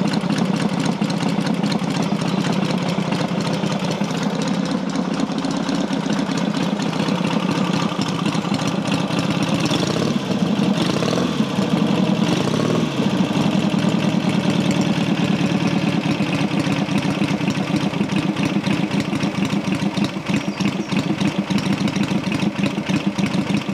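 Matchless G12 650 cc parallel-twin engine, freshly rebuilt and warm, idling steadily on the stand. About halfway through the idle drops to a slower tick-over as the manual ignition is moved back to retard.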